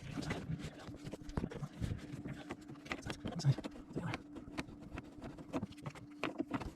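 Irregular clicks, knocks and light scraping of a Sharkbite deburring tool being worked onto the end of a half-inch copper pipe and handled, over a steady low hum.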